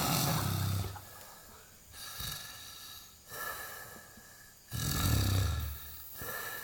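Loud, low, rumbling snoring from someone deeply asleep: two heavy snores about five seconds apart, one at the start and one about 4.7 seconds in, each lasting about a second, with softer breaths between them.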